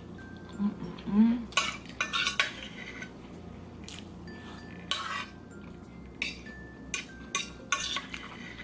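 Cutlery scraping and clinking against a dish in several short bursts while food is gathered from it. A brief low vocal sound from the eater comes about a second in.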